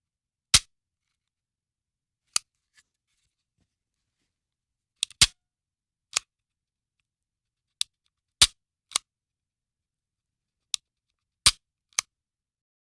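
Handgun shot sound effects: four loud, sharp single shots spaced a few seconds apart, each set among several quieter sharp cracks or clicks, with dead silence between them.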